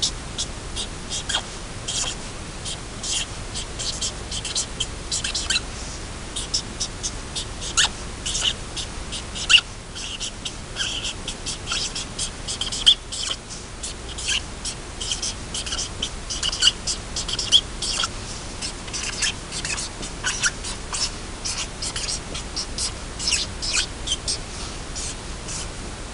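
Felt-tip marker squeaking on paper as letters are written: many brief, high squeaks in quick irregular strokes, over a steady faint hiss.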